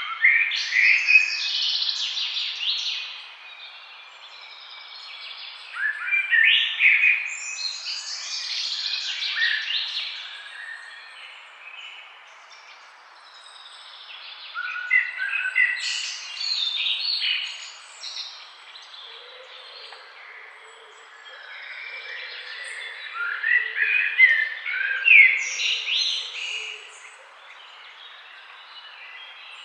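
Songbirds singing in a forest: bursts of quick, high chirping phrases every few seconds, with quieter gaps between, over a steady background hiss.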